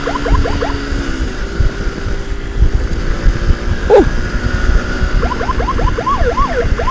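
Emergency siren on a fast yelp, a quick rising whoop repeating about six times a second, over wind buffeting and the motorcycle's engine. The yelp stops about a second in, a single falling sweep comes in the middle, and the yelp returns near the end, briefly sliding slowly up and down.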